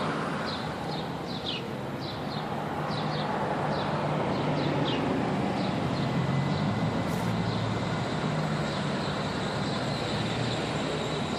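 Steady rumble of passing traffic or a running vehicle, with a low hum throughout. Over it, during the first five seconds, come a dozen or so short, high chirps from the baby birds.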